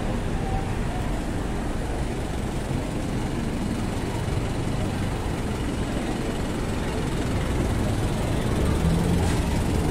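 Street traffic: vehicle engines running steadily, growing a little louder near the end.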